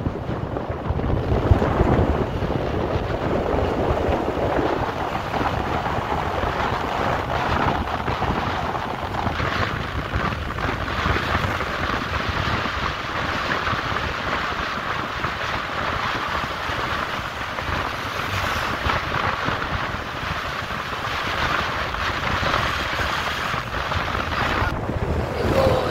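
Steady wind rushing over the microphone, mixed with the running noise of a moving vehicle.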